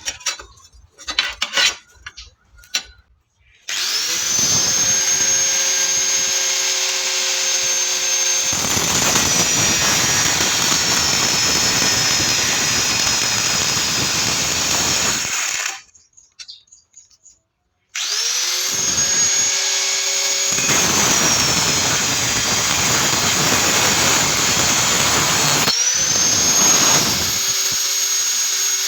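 Electric angle grinder spinning up and grinding steel, its high motor whine sagging in pitch while the disc bites, with a harsh grinding rush over it. It stops about halfway through and starts again a couple of seconds later. A few light knocks come first.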